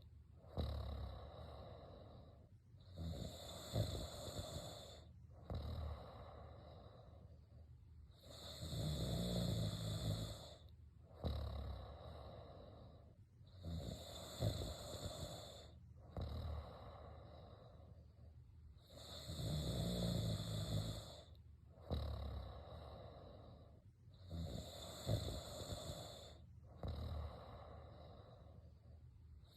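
A person snoring in a slow, regular rhythm. A loud snore of about two seconds comes every five to six seconds, about five times, with quieter breathing between.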